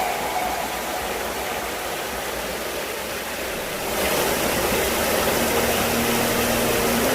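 Mountain stream rushing over rocks: a steady wash of running water that grows a little louder about four seconds in.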